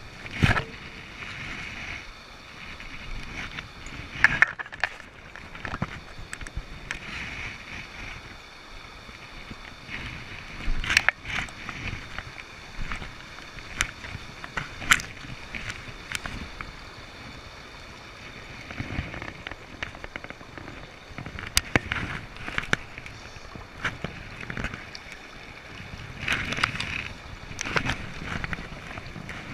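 River water rushing and splashing, with scattered short sharp clicks and knocks.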